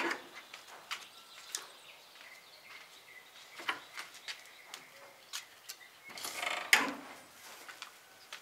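Scattered footsteps and knocks on wooden boards, with a louder rustle of handled cloth about six seconds in and faint bird chirps.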